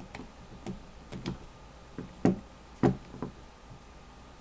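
A person's lips and tongue smacking while tasting hot sauce: a run of short, irregular wet clicks, the loudest a little after two seconds in.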